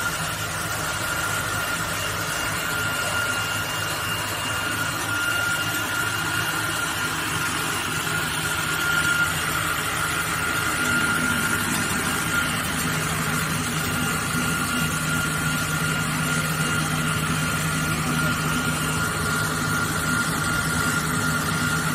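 Dazzini PD1500 diamond wire saw running steadily as its wire cuts through a block of white Carrara marble: an even mechanical hum with a steady high whine over it.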